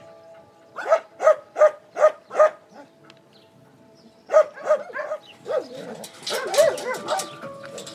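Dogs barking in shelter kennels. A run of five sharp barks comes about a second in, then more barks just past the middle, and several dogs bark over one another near the end.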